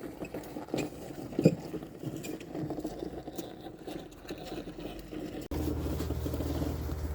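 A wheelbarrow being handled and pushed, its wheel and body rattling and knocking. About five and a half seconds in, the sound cuts suddenly to a steady low hum.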